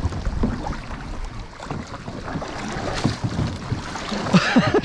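Canoe paddles stroking and splashing in river water, with wind rumbling on the microphone. A voice is heard briefly near the end.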